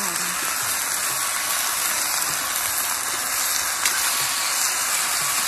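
Mixed vegetables frying in oil in a kadai over an open wood fire: a steady sizzle, with one sharp click about four seconds in.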